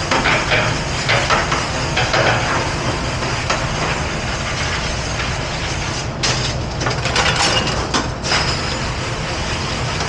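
Stainless steel cutlery clinking and rattling as it is handled and dropped into a wire flatware rack, over the steady noise of a commercial dish room. The clatter comes in scattered clinks, with a denser run of it about six to eight seconds in.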